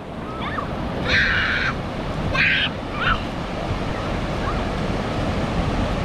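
Ocean surf washing in over the shallows, with wind rumbling on the microphone. Two brief hissing bursts come about a second in and again about two and a half seconds in.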